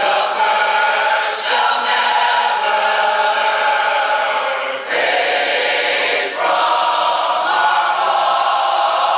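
A large mixed choir of men and women singing in long held chords, with short breaks between phrases about five and six and a half seconds in.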